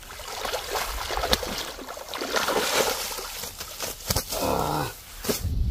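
Water splashing and sloshing as a hooked fish thrashes at the surface by the bank. Near the end come a couple of sharp knocks and a short pitched sound.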